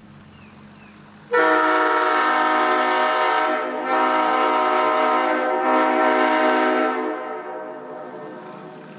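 Leslie S-2A and S-3B air horns sounding together on a split manifold as a five-chime Leslie S-5T (bells 25, 31, 37, 44, 55), a loud chord blown in three blasts: a long one and two shorter ones with brief breaks. It starts about a second in and fades with echo over the last two seconds.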